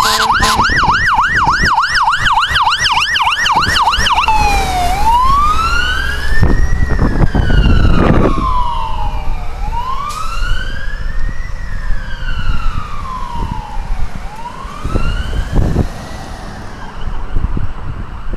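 Fire truck siren in a fast yelp, switching about four seconds in to a slow rising and falling wail. The truck's rumble swells as it passes about seven seconds in, then the wail fades as it drives away.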